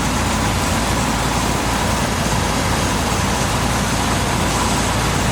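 1969 Chevrolet Corvette's matching-numbers 350 cubic-inch, 300 hp small-block V8 idling steadily.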